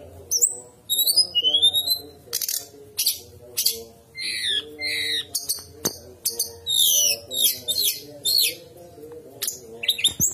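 Brown-chested jungle flycatcher singing: a rapid run of high, varied whistled phrases with quick rising and falling slurs and sharp chips.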